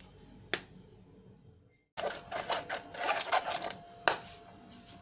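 Silicone spatula scraping and pressing lúcuma purée through a fine stainless-steel mesh strainer: a single click about half a second in, then a busy run of quick scrapes and clicks in the second half.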